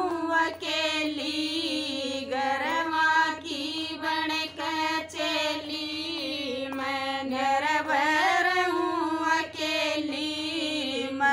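Women's voices singing a Haryanvi devotional bhajan together, unaccompanied, on long drawn-out notes that bend up and down, with a few hand claps.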